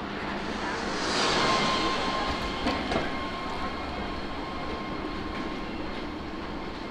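A motor scooter passes close by and rides away: tyre hiss and a thin steady motor whine swell to a peak about a second and a half in, then fade. A couple of short clicks come near the middle, over a steady background of street hum.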